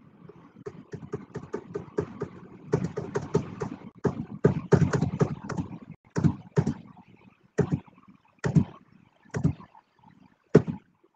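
Choppy, broken-up audio over a failing video-call connection: clipped fragments and clicks come in a dense run, then thin out into short separate bursts with dropouts between them in the second half.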